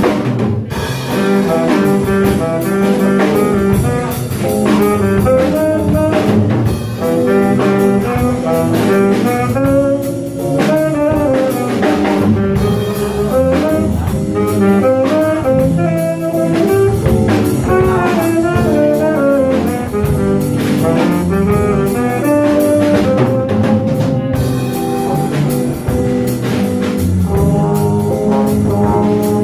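Live small jazz band playing steadily: a brass horn line over walking bass, piano and drum kit.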